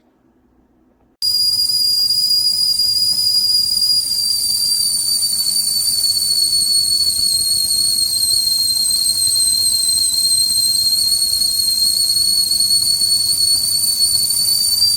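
Primula Stewart stainless steel stovetop kettle whistling at the boil: a loud, high, steady whistle that starts abruptly about a second in. Its pitch sags slightly midway and comes back up.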